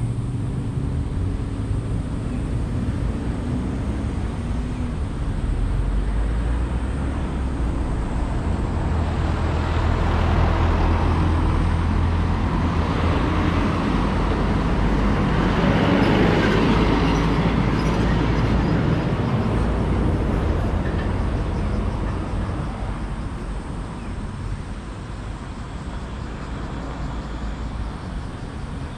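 Road traffic: a vehicle approaches and passes close by, loudest about halfway through and fading away soon after, over a steady low rumble.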